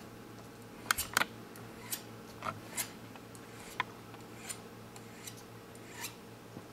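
A hand file scraping the cut end of jewellery wire in about ten brief strokes at uneven intervals, a few close together about a second in, to smooth the wire's edges. A faint steady hum lies underneath.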